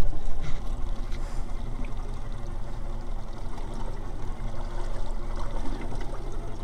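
Water lapping and trickling against a small boat's hull, over a steady low rumble.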